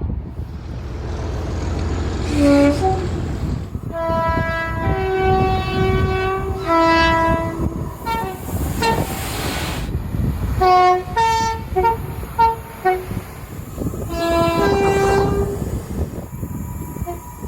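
Train sounding its two-tone horn several times, in short blasts that step between a higher and a lower note, over the rumble of the running train. A loud rush of noise about halfway through.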